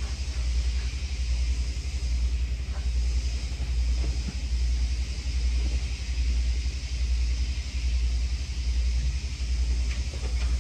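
A steady low rumble that swells and fades evenly about once a second, with a faint hiss and a few faint knocks and clicks.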